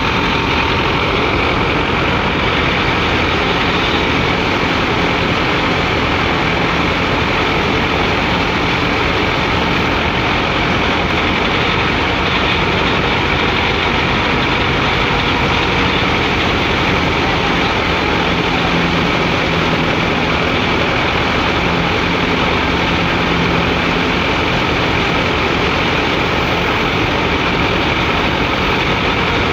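Tractor-powered wheat thresher running steadily while wheat sheaves are fed into it: a continuous loud mechanical din of the tractor engine and the spinning threshing drum.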